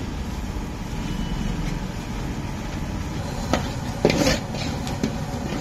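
Steady low background rumble, with two short knocks about three and a half and four seconds in.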